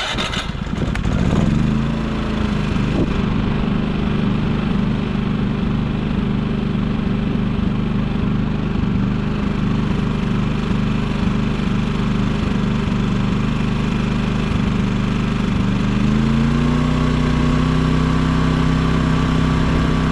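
Firman WH3200ie inverter generator starting up: the engine catches at once and settles to a steady run within about a second and a half. About sixteen seconds in, the engine speed rises and holds higher.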